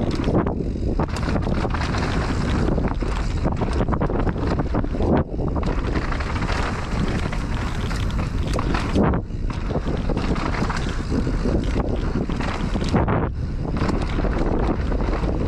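Mountain bike descending a dirt trail at speed: steady wind buffeting on the action camera's microphone mixed with tyre noise on dirt and many sharp clicks and rattles from the bike over bumps. The high hiss drops away briefly about four times.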